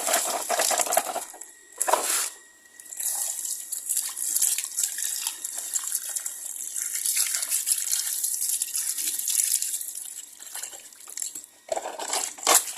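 Water running and splashing as a small toy bus is washed, coming in several gushes with short breaks.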